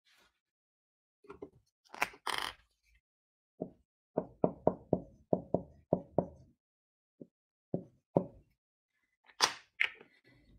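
Dry-erase marker writing on a handheld whiteboard: a quick run of about eight short strokes between four and six seconds in, then a few single strokes. A short rustling clatter of the board being handled comes about two seconds in and again near the end.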